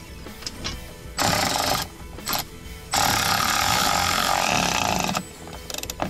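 An electric screwdriver on a long extension is running a screw into the plastic cup-holder base. It gives a short burst about a second in, then a longer run of about two seconds.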